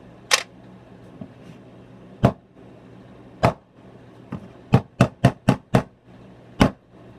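A screwdriver stabbing and striking an old Motorola phone's screen and plastic case: about nine sharp, hard knocks, a few spaced out, then a quick run of five at about four a second around five seconds in, and one more near the end.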